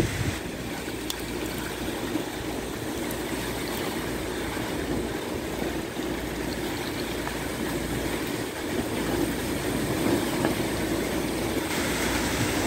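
Strong storm wind rushing and buffeting the phone's microphone, a steady noise that grows a little louder in the last few seconds.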